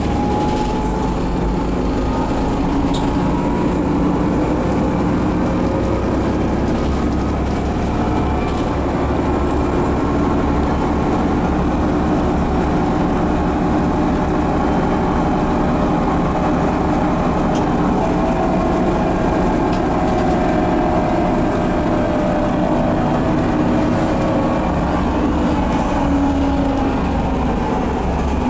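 Inside a 2008 Solaris Urbino 12 city bus under way at a steady speed: the DAF PR183S3 9.2-litre diesel drones steadily, its note drifting slightly up and down, over road noise and a few faint rattles.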